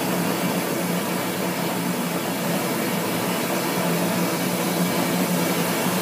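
Homemade propane foundry burner, a black iron pipe with a MIG-tip gas jet, firing in the open without forced air: a steady, loud rush of burning gas with an even low hum underneath, at a pressure enough to melt aluminum.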